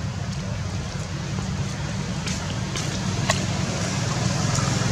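Low, steady motor-vehicle engine rumble, slowly growing louder near the end, with a few light clicks.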